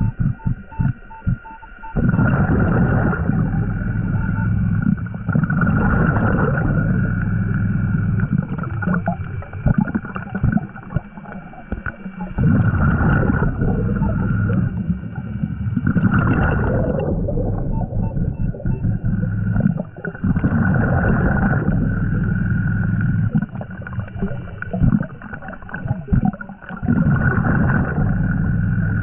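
Scuba diver's regulator breathing underwater: each exhale sends out a rumbling, gurgling rush of bubbles, in bouts every few seconds with short lulls for the inhale. A faint steady high whine sits underneath.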